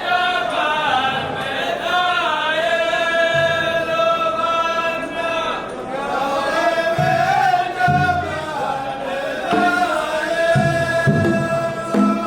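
Ardah chant: a male chorus sings long, drawn-out lines in unison, the notes held and wavering, with a few short low sounds underneath.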